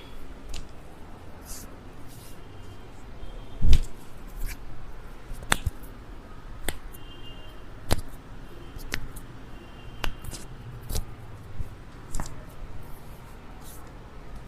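A series of sharp clicks during chiropractic treatment, about one a second from about five seconds in, with a single louder click and thud about four seconds in.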